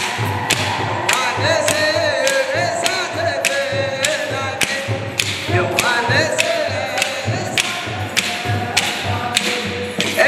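Men's choir singing Ethiopian Orthodox mahlet chant in unison, with an even beat of sharp strikes about twice a second throughout.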